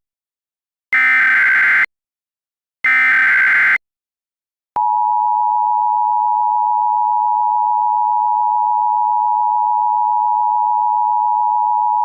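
Emergency Alert System SAME header: two roughly one-second bursts of shrill digital data screech about a second apart. About five seconds in comes the steady two-tone EAS attention signal, which holds unchanged.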